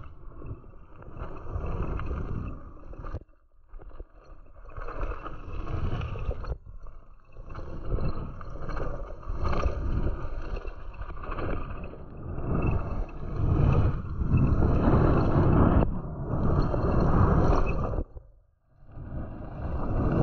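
Mountain bike rolling fast down a loose gravel forest road: the rumble and rattle of tyres on gravel mixed with wind on the microphone, swelling and fading with speed and cutting out briefly three times.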